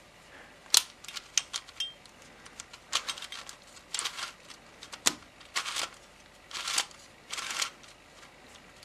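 Plastic pieces of a Gigaminx puzzle clicking and scraping as they are pressed and slid into place on the last side of the assembly: a run of sharp clicks mixed with short scraping sounds of about half a second each.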